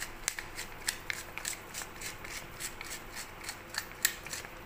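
Hand-twisted pepper mill grinding black peppercorns: a steady run of short dry clicks, about three to four a second.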